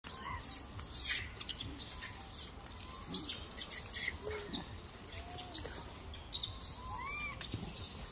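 Birds chirping, with many short high calls scattered throughout, some rising and falling in little arcs, over light rustling and clicks.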